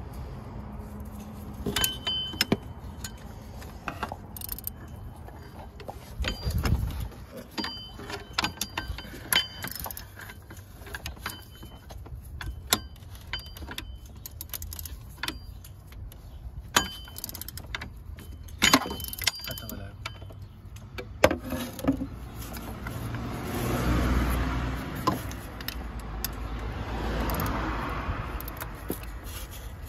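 Metal hand tools and engine parts clinking and tapping during work on a car engine: scattered sharp clicks and knocks, many with a short metallic ring, and two longer stretches of scraping noise near the end.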